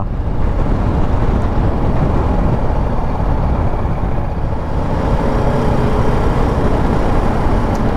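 BMW G310 GS single-cylinder motorcycle riding at a steady cruise: the engine running under a steady rush of wind and road noise.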